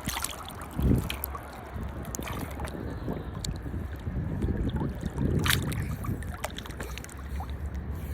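Ocean water with wind buffeting the microphone: a low rumble that swells about a second in and again around five seconds, with scattered sharp crackles.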